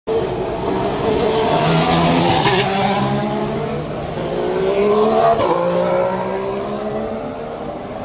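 2014 Formula One cars' 1.6-litre turbocharged V6 engines accelerating past, several overlapping engine notes rising in pitch. The sound is loudest about five seconds in, then eases off.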